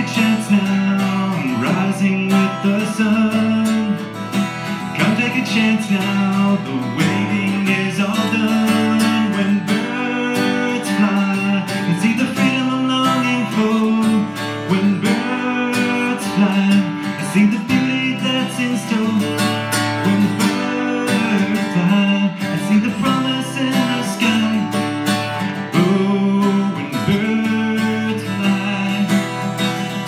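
Acoustic guitar strummed steadily, with a man singing over it.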